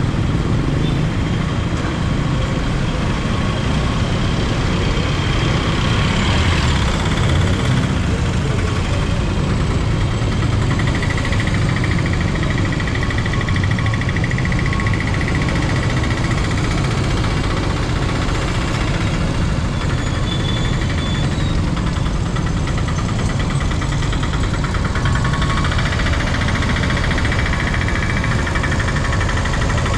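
Steady engine and road noise from a vehicle being driven, a constant low rumble with no pauses.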